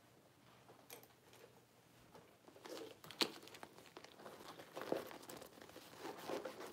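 Crossbody purse handled close to the microphone: rustling and crinkling of the bag and strap, with a few sharp clicks of its zipper and brass hardware, starting about two and a half seconds in.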